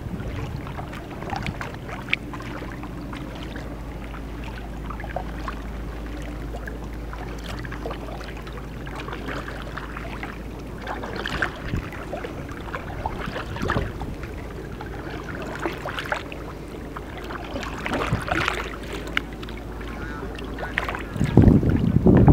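A kayak paddle dipping and splashing in calm harbour water, the strokes coming every couple of seconds over a steady low rumble, with a louder rumble near the end.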